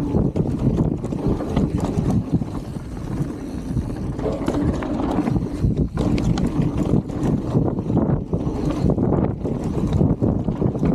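Wind buffeting the camera microphone over the mountain bike rolling fast down a dirt trail: a steady loud rumble from the tyres on the ground, with frequent short clatters as the bike goes over bumps.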